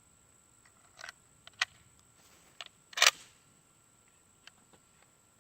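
A few scattered sharp mechanical clicks and clacks over a quiet background, the loudest about three seconds in.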